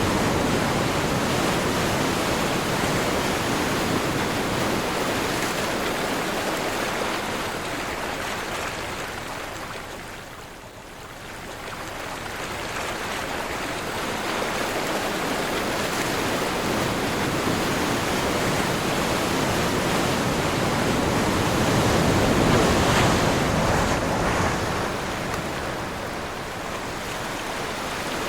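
Sea waves washing and breaking, a continuous rushing surge with wind. It swells and fades, dies down briefly about ten seconds in, then builds again.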